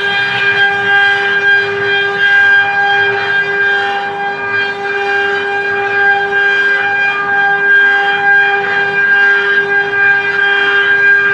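CNC machine's spindle running at speed with a steady, high whine while it carves a ring.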